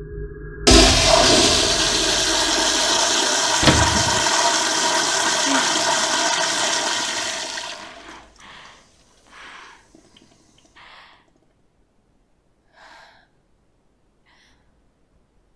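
A toilet flushing: a loud rush of water that starts under a second in and runs about seven seconds before dying away, with a short knock about four seconds in. A few short, faint sounds follow.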